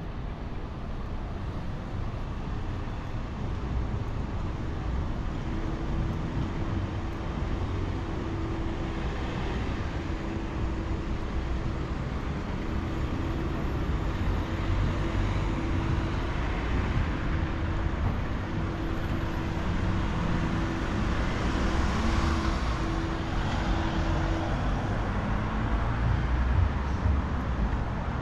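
Road traffic: a steady wash of engine and tyre noise from passing vehicles, swelling about three-quarters of the way through as something passes close. A steady low drone comes and goes through the middle.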